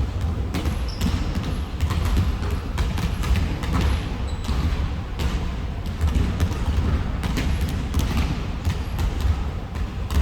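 Several basketballs bouncing on a gym floor at once, an irregular run of overlapping bounces, with a few short high squeaks.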